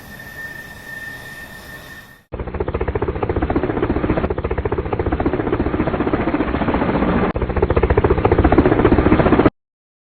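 Jet airliner engine noise with a steady high whine, cut off abruptly about two seconds in. A much louder, rapid chopping rumble like a helicopter's rotor follows; it runs steadily for about seven seconds and then stops suddenly.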